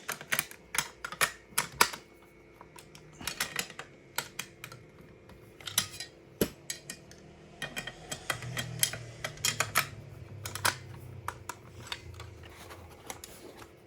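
Irregular clicks and knocks of an airsoft AK rifle and its high-capacity magazine being handled.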